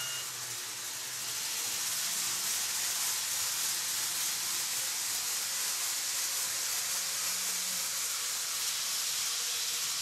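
A model level crossing's electronic warning bell stops just after the start. Then comes a steady high whirring hiss of an N-gauge train, a KATO 683 series Thunderbird, running on the track.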